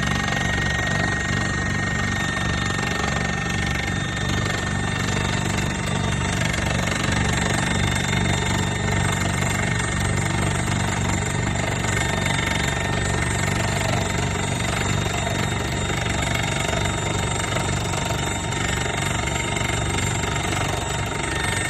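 Excavator-mounted hydraulic rock drill hammering steadily into rock, with the machine's diesel engine running under it.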